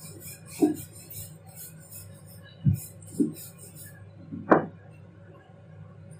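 Wooden rolling pin rolling out stuffed paratha dough on a wooden board: quiet rolling with a few dull knocks of the pin against the board, the sharpest about four and a half seconds in.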